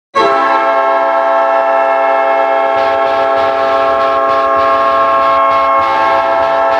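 Winnipeg Jets goal horn blasting, the signal of a home goal: one long, loud, chord-like horn blast that starts abruptly and holds steady without a break.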